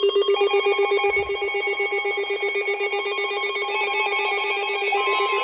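Electronic emergency-alert tones: a rapidly pulsing, buzzing tone, joined about half a second in by higher steady tones, with another steady tone starting near the end.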